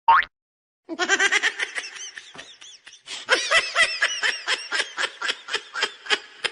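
A brief rising tone at the start, then a long run of rapid, high-pitched laughter in short bursts, about five a second.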